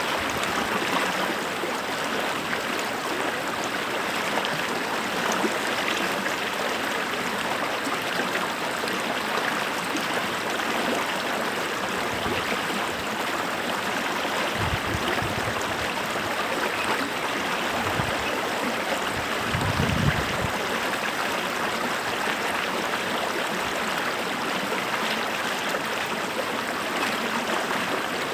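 Water of a flowing stream rushing steadily, with a few brief low bumps in the second half.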